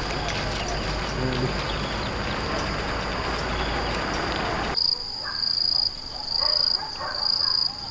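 A high-pitched insect buzz. It is steady at first over a broad outdoor background noise, then, after an abrupt change, it pulses on and off about once a second against a quieter background.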